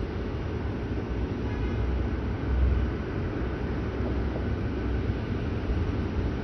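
Airbus A321neo's Pratt & Whitney PW1100G geared turbofans at taxi idle: a steady low rumble.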